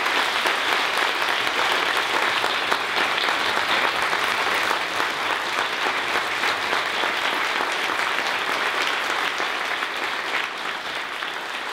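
A large auditorium audience of students applauding steadily, the clapping thinning a little near the end.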